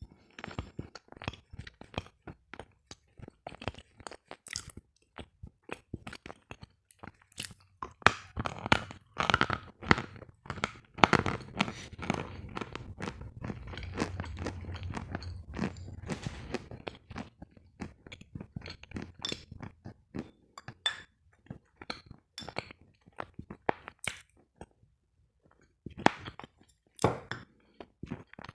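Crunching and chewing of sawn Khrapovsky chalk: a long series of sharp, crisp bites and crunches, densest and fullest in the middle, thinning to scattered crunches later on.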